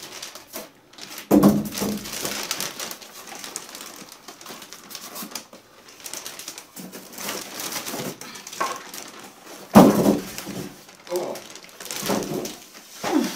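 Plastic bag rustling and polystyrene foam packing blocks scraping and creaking as a heavy inkjet printer is pulled free, with two heavy thumps, about a second and a half in and near ten seconds, as the bagged printer is tipped and set down.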